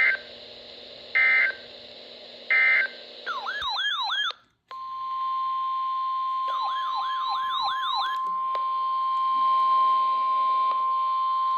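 Emergency Alert System tones: three short data bursts about a second apart, the end-of-message code of a weather warning. Then a tone warbling up and down, a brief drop-out, and a long steady 1050 Hz weather-radio warning alarm tone, with more warbling sweeps over it for a second or two.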